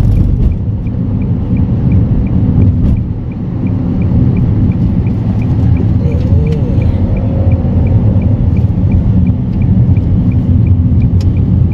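Car interior road noise: a steady low rumble of the engine and tyres in a moving car's cabin. A faint, regular ticking repeats a few times a second through most of it.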